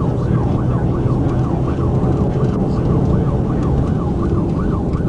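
Police car siren in its rapid yelp mode, sweeping up and down in pitch about two and a half times a second, over a loud steady rumble of engine and road noise from the moving car.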